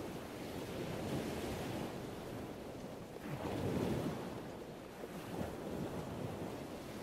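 Steady wash of sea water and wind, with a louder swell for about a second near the middle.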